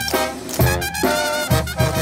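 Brass band playing lively dance music, a horn melody over a steady bass beat of about two beats a second.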